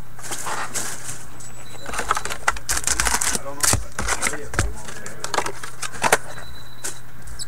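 A cardboard trading-card box being handled and its foil packs pulled out: crinkling wrappers and light clicks and knocks, busiest in the middle seconds, over a steady low hum.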